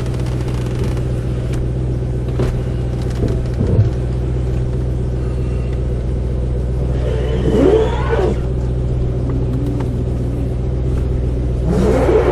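Car driving with a steady low drone of engine and road noise, with a brief scrape from the car about seven seconds in and again near the end.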